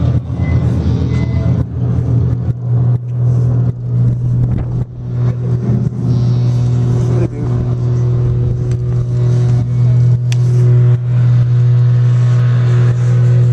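Steady low hum of a running motor vehicle engine close by, with bumps and rustling in the first half.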